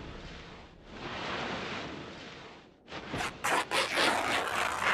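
Anime fight sound effects: two swelling rushes of noise, then from about three seconds in a quick run of sharp cracks and snaps.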